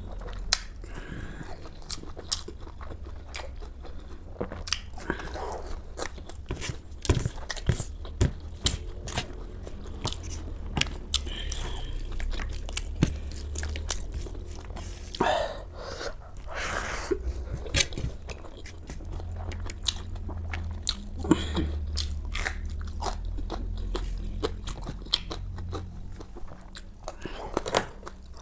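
A person chewing food close to the microphone, with frequent sharp, irregular crunches and bites.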